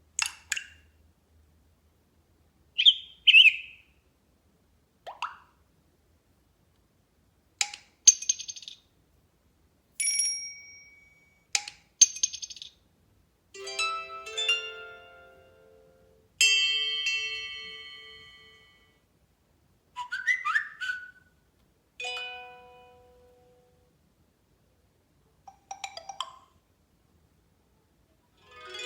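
Samsung Galaxy S4 notification tones played one after another: about a dozen short chimes, blips and jingles, a few ringing out for a second or two, each followed by a pause of silence.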